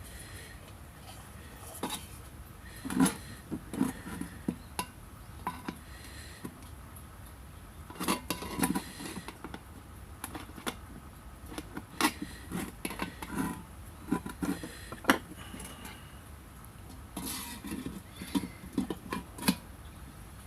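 Irregular clinks and knocks of light metal stove parts being handled and fitted together, with the sharpest knocks about three seconds in and again around eight, twelve and fifteen seconds.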